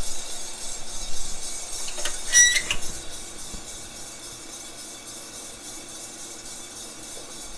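Feima 100n drum coffee roaster running just after the beans are charged, a steady hiss of drum and fan that is uneven for the first few seconds, then settles. A short electronic beep from a digital kitchen timer comes about two and a half seconds in.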